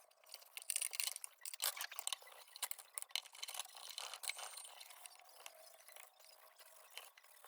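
Faint, quick, irregular scratching and light clinking of steel wool being worked over the tin of a lantern part.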